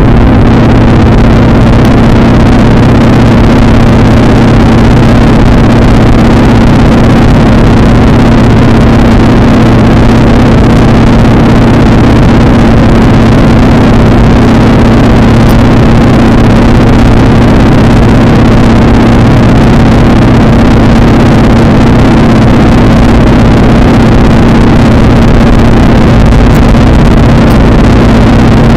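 Steady, loud drone of a PZL-104 Wilga light aircraft's piston engine and propeller in level flight, heard from inside the cabin.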